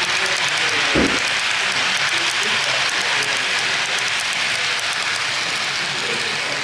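HO scale model freight wagons running past on the layout's track, their wheels ticking over the rail joints until the last van has gone, over a steady hiss of hall background noise with faint distant voices and a soft thump about a second in.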